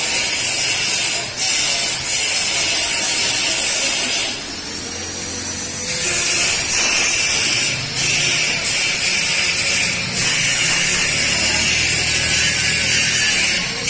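Oxy-acetylene welding torch flame hissing steadily while thin steel pipe is gas-welded with filler wire. The hiss drops briefly a few times, and for about a second and a half near the middle.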